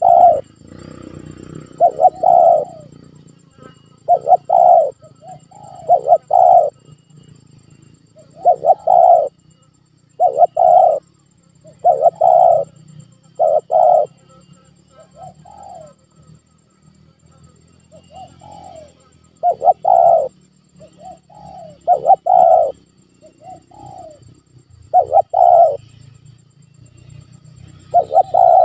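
Spotted dove cooing: short phrases of two or three low coos, repeated every couple of seconds.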